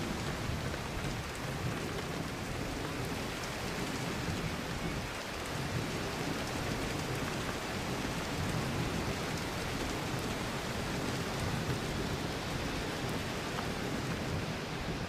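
Steady rain falling, an even hiss with a few sharper drops.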